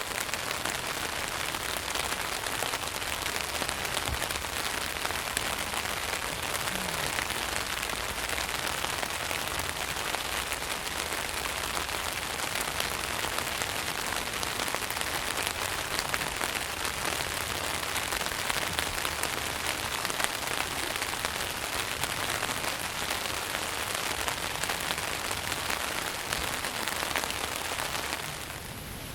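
Steady rain falling on a tent, a dense patter of many small drops on the fabric. Just before the end it gives way to a quieter, smoother hiss.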